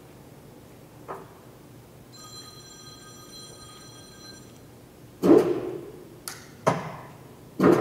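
Tuda Myler 500x2000G engine lathe headstock being shifted to a new spindle speed with the spindle stopped. A small click and a faint high steady whine come first, then four loud metal clunks in the last three seconds as the gear levers and chuck are worked.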